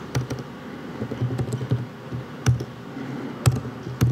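Typing on a computer keyboard: irregular keystrokes, with a few louder taps in the second half.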